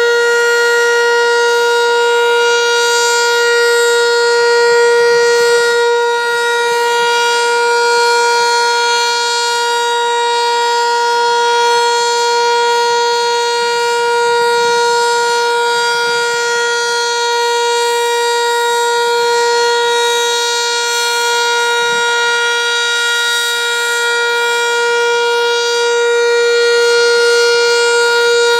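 Sentry 3V8-H tornado siren sounding at full speed: one steady, unbroken tone with strong overtones and no rise or fall in pitch, its loudness swelling slightly now and then.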